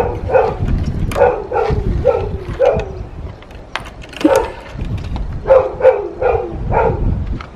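A dog barking repeatedly in quick runs of short barks, with a brief lull in the middle.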